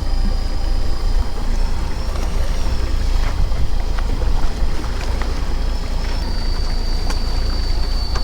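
Fishing boat's engine running steadily with a deep low rumble and some wind on the microphone, a thin steady high whine over it and a few small clicks.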